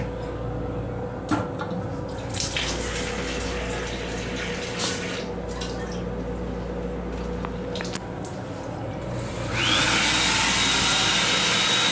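Water running in a train restroom: a loud, steady rush that starts suddenly about nine and a half seconds in, over the railcar's steady running hum and occasional clicks from the track.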